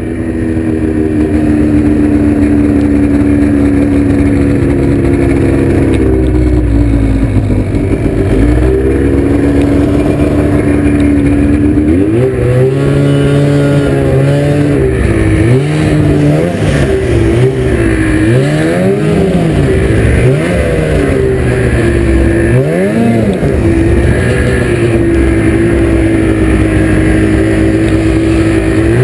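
Ski-Doo MX Z 800 snowmobile's two-stroke twin engine running under way, loud and close. Its pitch holds fairly steady at first, then rises and falls again and again with the throttle from about halfway through.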